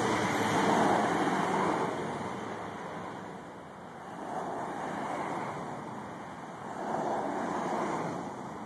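Vehicles passing on a street, each a swell of tyre and engine noise that rises and fades. One fades away over the first couple of seconds, another swells by about halfway, and a third near the end.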